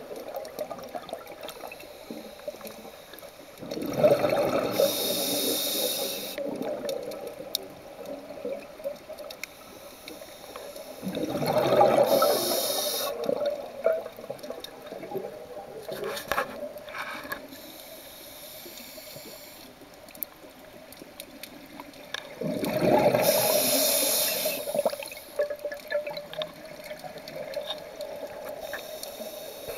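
A scuba diver's regulator heard underwater: three rushes of exhaled bubbles, each lasting two to three seconds and some eight to ten seconds apart, with quieter breathing noise and a few clicks between.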